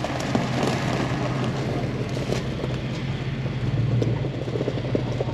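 Steady low hum of an idling vehicle engine, with scattered footsteps crunching on gravel.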